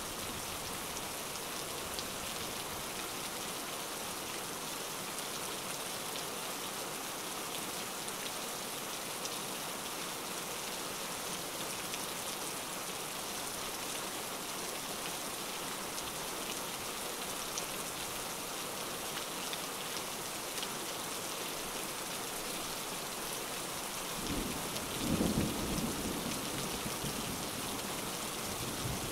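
Steady rain falling, with a low roll of thunder rising near the end.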